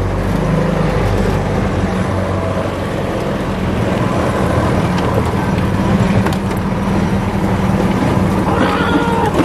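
Golf cart's swapped-in 6.5 horsepower single-cylinder small engine running steadily under load as the cart drives over rough grass.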